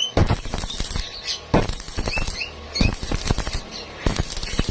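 Welding arc crackling in short bursts of about half a second to a second, several times over, as a series of short welds or tacks is laid.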